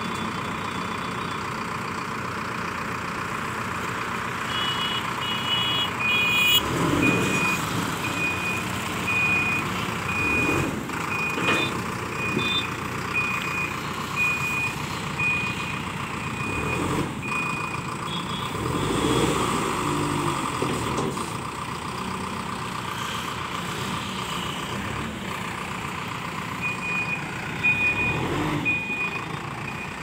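Manitou Ranger backhoe loader's engine running as the machine reverses, with its reversing alarm beeping about once a second in two spells, one from about six seconds in to past halfway and a shorter one near the end.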